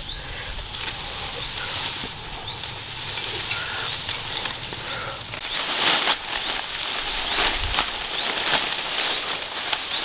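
Dry grass and brush rustling and crackling as someone pushes through dense undergrowth, loudest about six seconds in, with short high rising chirps repeating throughout.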